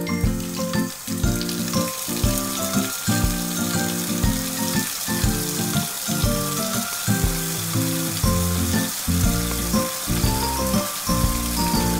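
Background music with a steady beat over a continuous hiss of water running in a toy kitchen sink.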